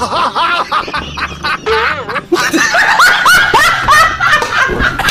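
Hearty laughter: a quick run of high-pitched ha-ha sounds that grows louder about three seconds in.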